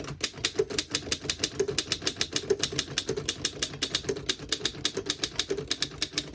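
A 1915 Underwood No.5 manual typewriter being typed on steadily: rapid, sharp keystroke clacks of the typebars striking the platen, about seven a second.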